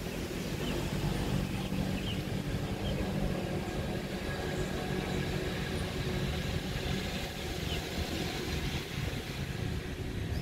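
Steady outdoor background rumble, heaviest at low pitch, with a few faint short high chirps scattered through it.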